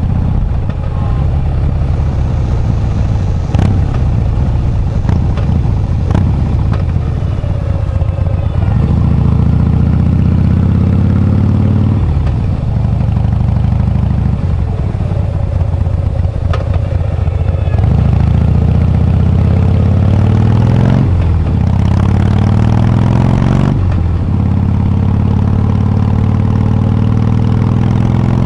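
Harley-Davidson Breakout's V-twin engine under way, pulling hard through the gears. Its pitch climbs and drops back at each gear change, three times in the second half.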